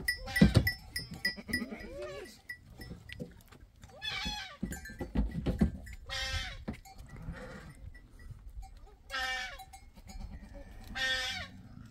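Goats bleating in a crowded pen: several loud, quavering bleats a couple of seconds apart, with a thump about half a second in and shuffling between the calls.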